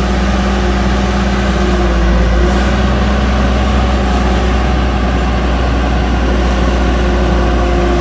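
A JCB JS 205 tracked excavator's diesel engine running steadily under hydraulic load. The boom is pressing down to hold one side of its tracks raised off the ground.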